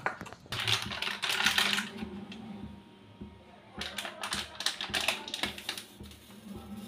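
Plastic snack packet crinkling in quick, sharp crackles as it is squeezed to pipe a paste, in two spells.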